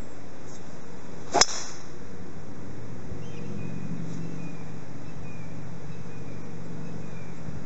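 Golf driver striking a teed ball: a single sharp crack about a second and a half in.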